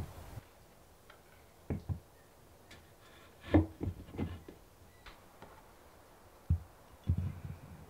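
Wooden shelf board and black metal shelf brackets being handled and set against a wall: scattered knocks and clunks, a pair close together early, a cluster of them in the middle, and a few more near the end.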